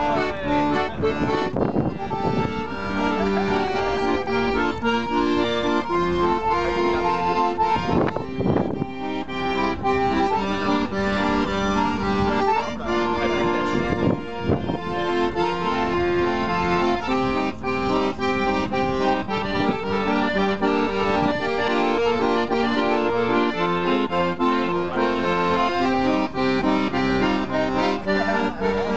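A piano accordion playing a lively tune, a melody over chords, with the notes changing in quick steps.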